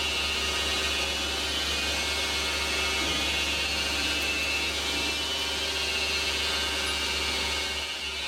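Manual metal lathe running steadily: a constant low hum under a high, thin whine, easing slightly near the end.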